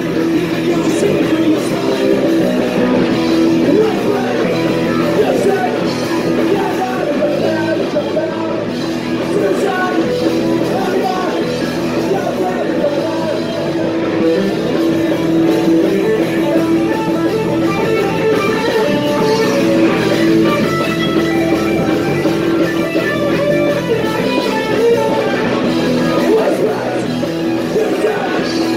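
Punk rock band playing live, loud and steady, with electric guitar to the fore.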